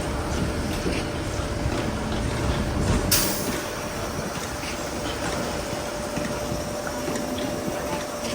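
Concrete truck's engine and machinery running steadily, with a short hiss about three seconds in, after which the low rumble eases.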